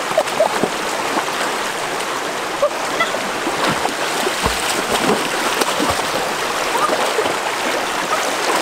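Shallow stream running over rocks, with splashing and sloshing as people wade and grab at fish with their hands in the water.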